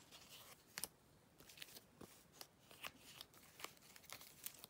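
Faint rustling and clicking of baseball cards being handled and shuffled, several short clicks scattered through.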